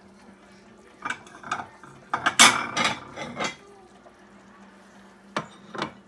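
Dishes and cutlery clattering while a small plate is fetched: a few sharp clinks, then a loud burst of rattling about two seconds in, and two sharp knocks near the end. A faint steady hum runs underneath.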